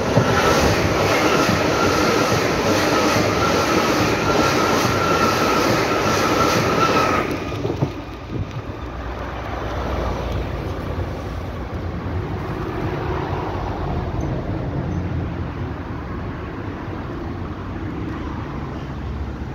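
A small-profile Berlin U-Bahn train passes close by with a steady high wheel squeal and a rhythmic clatter of wheels over the rails. About seven seconds in the sound drops off sharply to a quieter low rumble of a train running further away.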